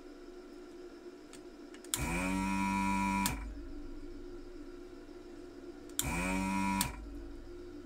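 Electric desoldering gun's vacuum pump switched on twice, first for a little over a second and then for just under a second. Each time it rises quickly to pitch and then holds a steady whine as it sucks molten solder from a circuit-board joint.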